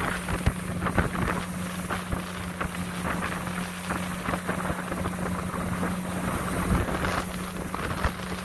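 Mercruiser 260 V8 sterndrive engine running at a steady speed as the boat cruises, with gusts of wind noise on the microphone.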